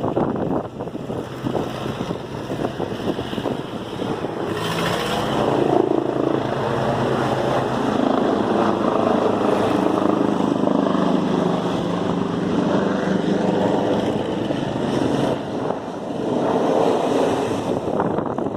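An engine running steadily, its hum coming up about four or five seconds in and dropping away about fifteen seconds in, over wind buffeting the microphone.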